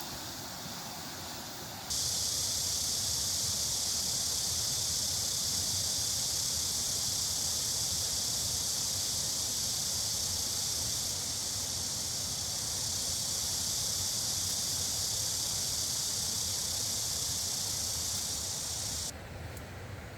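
A steady, loud hiss that starts suddenly about two seconds in and cuts off sharply near the end, over a lower steady background rush.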